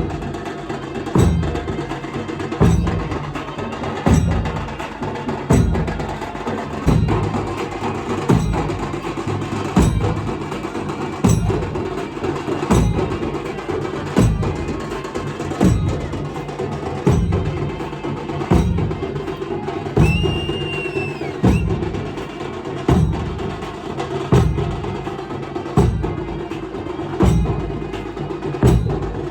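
Dhol drums beaten in a steady, repeating Shimga rhythm: a deep bass stroke about every second and a half, with sharp stick strokes between. A short high whistle sounds briefly about twenty seconds in.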